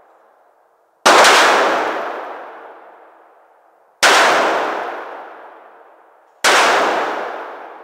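Three shots from a large-calibre revolver: one about a second in, one about four seconds in, and one just past six seconds. Each is a sharp crack followed by a long reverberation inside an indoor shooting range that dies away over about three seconds.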